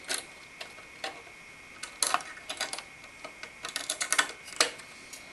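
Stamped-steel CPU cooler back plate being slid over the mounting studs and seated against the back of the motherboard: scattered light metallic clicks and taps, bunched about two seconds in and again about four seconds in.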